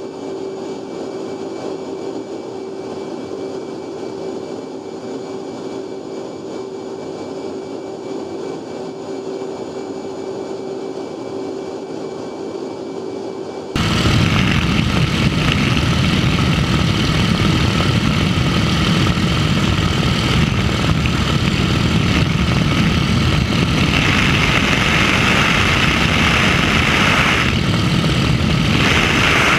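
F/A-18 Hornet cockpit noise in flight: a steady hum of engine and airflow with one constant tone. About 14 seconds in it cuts to much louder, steady wind rush and propeller engine noise at the open window of a propeller-driven photo plane.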